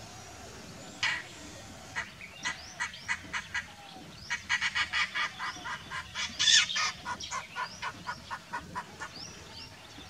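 Indian roller calling in short harsh notes. A loud note comes about a second in and a few spaced notes follow, then a rapid run of about four or five notes a second lasts until near the end, loudest in the middle. Faint high rising chirps sound beneath.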